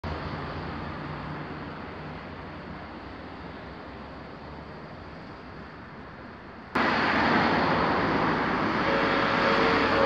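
Road traffic noise that jumps abruptly much louder about two-thirds of the way through. Near the end, steady tones set in, which fit a Japanese level crossing's warning bell starting to ring.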